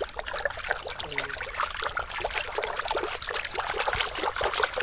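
A hand-worked foley prop giving a continuous dense crackling rustle of many tiny clicks, much like trickling water. It is the foley artist's own invented device.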